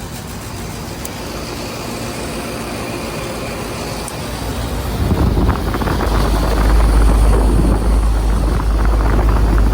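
Trane Odyssey condensing unit running, with its fan and scroll compressor making a steady rush. About five seconds in it gets much louder, with a deep low rumble.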